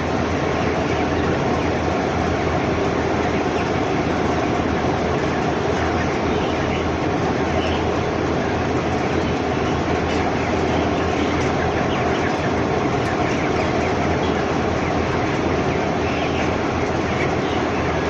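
Dense, steady din of a large flock of broiler chickens packed in a shed, thousands of birds chattering and peeping at once over a steady low hum.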